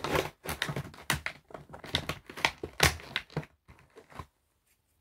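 Clear plastic blister packaging crinkling and clicking as a toy is handled in its tray, a quick run of sharp rustles that stops abruptly about four seconds in.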